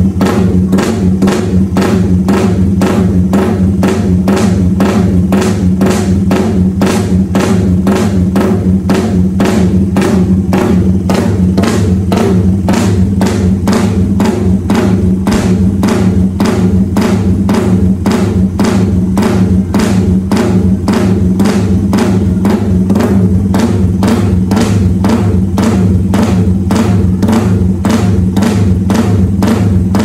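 Music with a fast, steady drum beat over a deep, unchanging bass.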